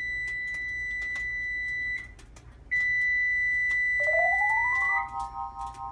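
Electronic timer alarm: two long steady beeps at one high pitch, each about two seconds, with a short gap between. During the second beep a synthesized tone rises and settles into a held chord that fades.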